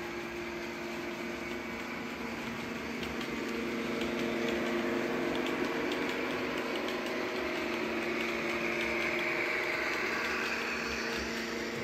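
Model railway locomotive running on the layout: a steady mechanical hum with faint clicking, growing a little louder over the first few seconds and then holding steady.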